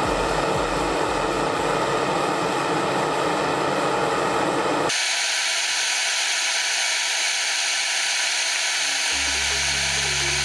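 Steady hissing rush of a butane blowtorch flame burning into floral foam. About five seconds in the sound changes abruptly, becoming thinner and hissier, and a low steady hum joins it near the end.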